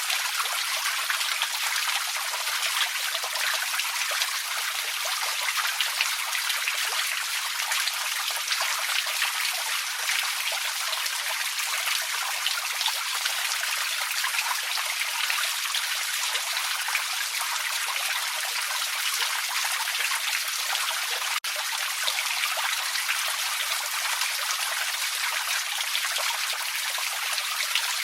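Small forest creek trickling steadily, an even rush of running water, broken by a momentary dropout about three-quarters of the way through.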